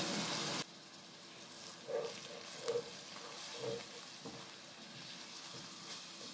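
Hot oil sizzling in an aluminium pot as ground spices are stirred in with a plastic slotted spatula. The sizzle is loud for about the first half-second, then drops suddenly to a faint sizzle, with a few short scraping stirs against the pot in the middle.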